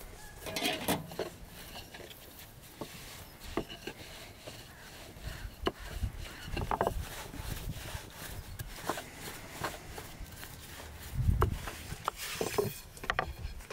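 A thin wooden rolling pin rolling out dough on a wooden board: irregular light wooden knocks and rubbing, with a louder thump about three-quarters of the way through.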